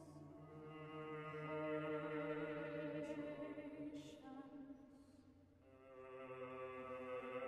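Mixed chamber choir singing sustained chords a cappella, with a few short hissed consonants; the held chord fades away about five seconds in and a new chord swells in just after, ringing in a cathedral's echo.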